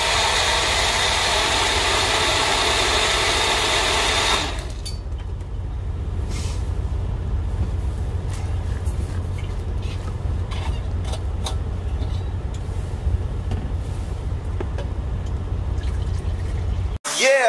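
Magic Bullet blender motor running with the cup pressed down on the base, blending fruit, then stopping suddenly about four seconds in. After it stops, scattered plastic clicks and knocks as the cup is lifted off and the blade base unscrewed, over a low steady rumble.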